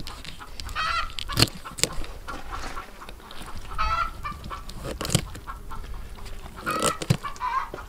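Domestic poultry calling in short honking squawks, about one every three seconds. A few sharp clicks come from a fillet knife working through a chum salmon's thick skin and backbone.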